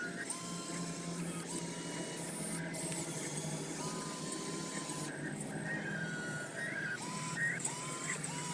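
Small electric motors and servos of remote-control scale construction models whining in short repeated spells over a steady low hum.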